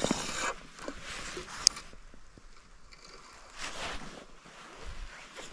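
Rustling of a padded jacket and fleece gloves as a spinning rod and reel are handled, with one sharp click about one and a half seconds in and a second rustle near the end.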